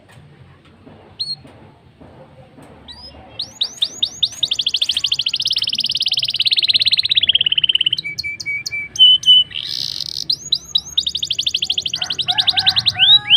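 Blackthroat (black-throated canary) singing a long song: quick rising notes speed up into long, fast, high trills. The song dips lower briefly, trills again, and ends with a few lower whistled notes.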